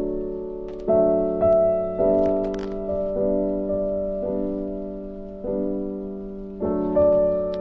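Slow solo piano music: soft chords struck about every one to one and a half seconds, each left to ring and fade.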